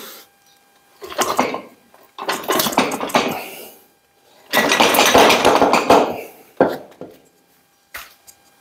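Metal parts and tools clattering and scraping in three bursts of one to two seconds each, followed by a couple of short knocks.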